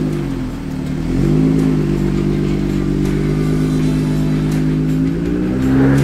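Jeep Gladiator's engine through an aftermarket AWE exhaust, running under load at steady revs while crawling over rock; the revs drop briefly at the start, climb about a second in and climb again near the end.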